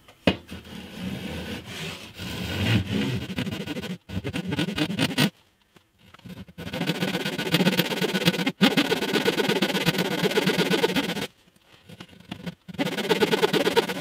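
Handsaw cutting across the end of a wooden guitar neck against a guide block, in runs of quick back-and-forth strokes broken by two short pauses.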